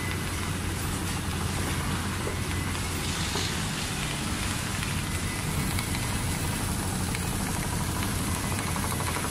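Richpeace large-area rotating-head CNC sewing machine running and stitching upholstery fabric, a steady low machine hum at an even level.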